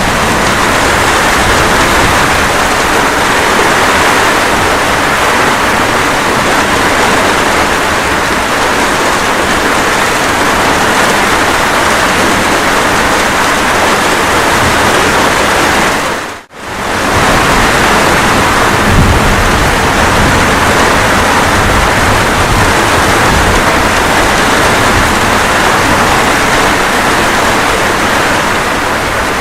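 Steady rain falling, an even hiss without breaks, with a brief fade to near silence and back about halfway through.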